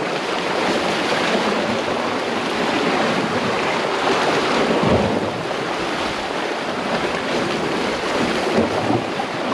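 Sea waves surging and breaking against rocks, a steady rushing wash with a heavier surge about halfway through, mixed with wind on the microphone.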